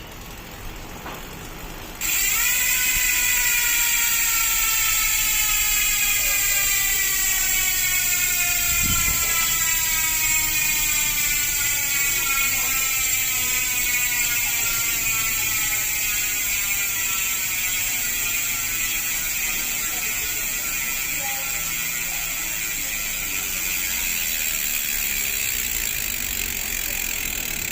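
Dartmoor Reel Pro 102 v2 XD bicycle hub, lubricated with hub oil, freewheeling with a loud ratchet buzz as the wheel spins. It starts about two seconds in, and the buzz slowly falls in pitch as the wheel gradually slows.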